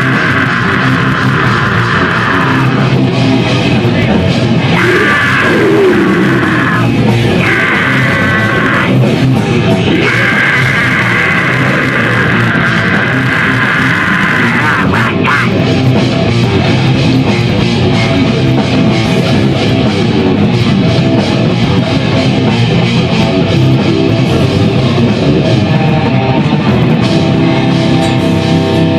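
Loud rock music with guitar and drum kit playing steadily.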